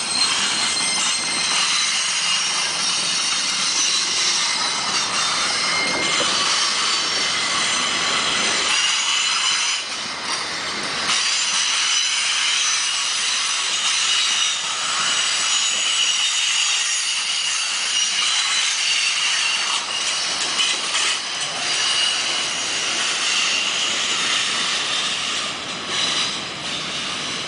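Freight cars of a long CSX freight train rolling past, boxcars and covered hoppers rattling over the rails, with steady high squealing tones from the steel wheels.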